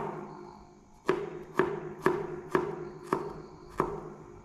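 Knife slicing garlic cloves into thin slices: about seven sharp chopping strikes roughly half a second apart, each followed by a brief ring.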